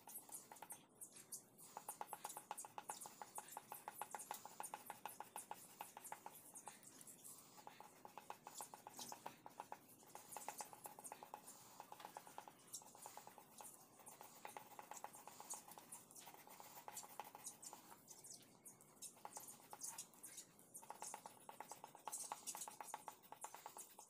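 Colored pencil scratching on paper in quick, short back-and-forth strokes, shading in green leaves; faint, with a rapid run of scratchy clicks.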